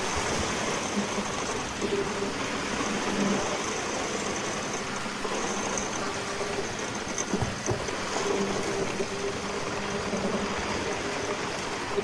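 Concrete pump truck running while concrete is pumped through the boom hose into ICF wall forms: a steady rushing noise with a faint, intermittent low hum.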